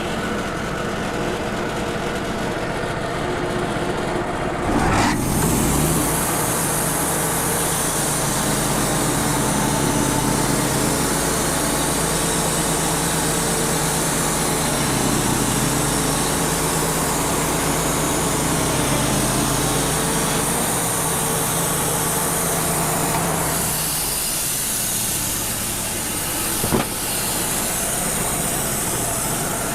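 Wood-Mizer LT35 band sawmill running, its blade sawing through a soft maple log from about five seconds in until about twenty-four seconds in, then running lighter with a single knock near the end.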